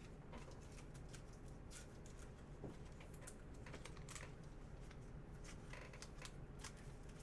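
Faint, irregular light clicks and taps, several a second, over quiet room tone.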